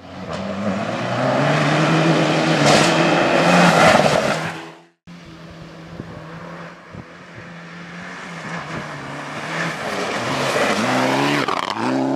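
Mitsubishi Lancer Evo X rally car's turbocharged four-cylinder engine running hard at high revs. The sound cuts out sharply about five seconds in, then comes back quieter and builds steadily louder, with the engine note bending up and down near the end.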